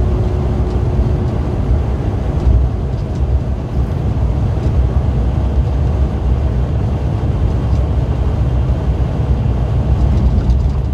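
Steady low road and engine rumble heard from inside a vehicle's cab at highway speed. A faint steady hum rides on it and stops about a second and a half in.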